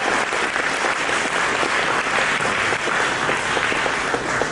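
Banquet audience applauding steadily.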